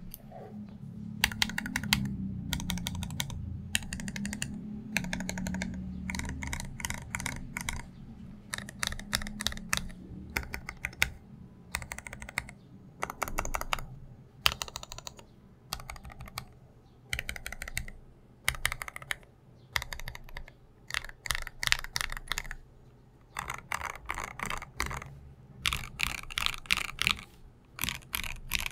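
Typing on a Space65 R2 mechanical keyboard with lubed and filmed Alpaca V2 linear switches on an FR4 plate and XMI keycaps: quick runs of keystrokes in bursts, with short pauses between them.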